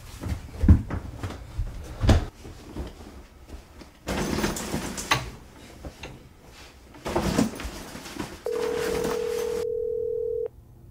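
Knocks and rustling as clothes are handled at a closet, then a telephone dial tone holding one steady pitch for about two seconds near the end, cut off by a click.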